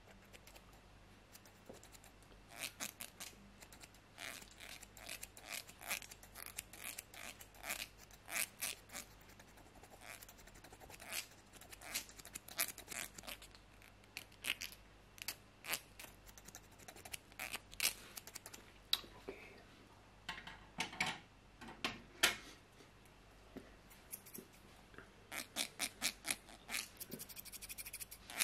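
Haircut scissors snipping close to the microphone in irregular runs of crisp snips, with a fast flurry near the end, and a comb worked past the microphone between runs.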